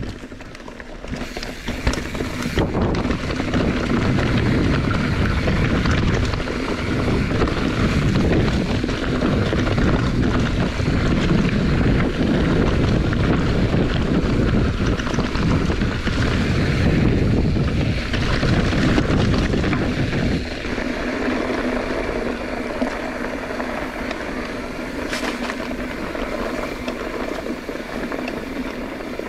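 Wind rushing over the microphone on a fast downhill ride, with a heavy low rumble that eases off about two-thirds of the way through.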